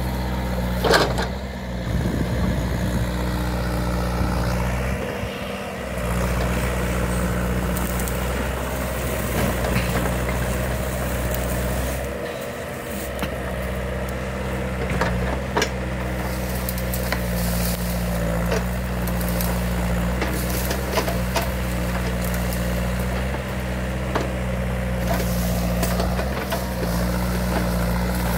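Case mini excavator's diesel engine running steadily under hydraulic load as the boom and bucket work, its note dipping briefly twice. A few sharp knocks and cracks from the bucket and brush, the loudest about a second in.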